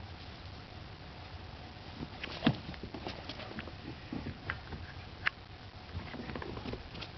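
Footsteps crunching in snow: irregular soft crunches and clicks, the sharpest about two and a half seconds in and again a little after five seconds.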